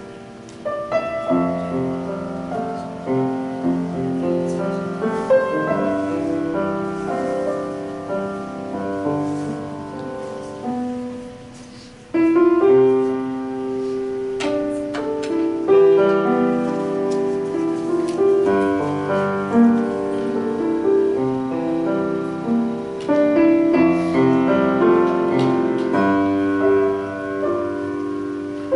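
Piano music: a slow piece of held chords and melody notes. It fades to a short break about twelve seconds in, then comes back louder.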